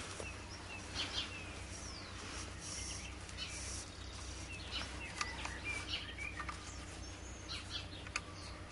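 Small birds chirping, with scattered rustles and soft knocks as a rifle and its cloth cover are handled, over a steady low rumble.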